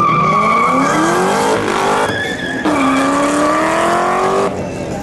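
A high-performance sports car accelerating hard through the gears: the engine's revs climb, drop at a gear change about two seconds in, climb again, and fall away near the end. A high steady tyre squeal sounds through the first second or so.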